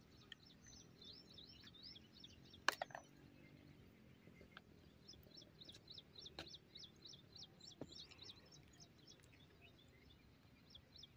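Faint background birdsong: long runs of quick, high chirps repeating several times a second. One sharp click comes about a quarter of the way in, and a few softer ticks follow later.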